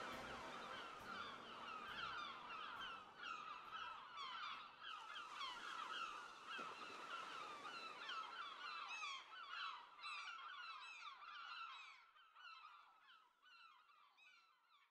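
A flock of seagulls calling, many short overlapping cries at once, thinning out and fading away over the last few seconds.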